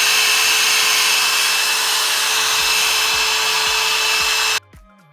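Handheld hair dryer running on a steady setting: rushing air with a constant motor whine. It cuts off suddenly about four and a half seconds in, leaving faint background music with a bass line.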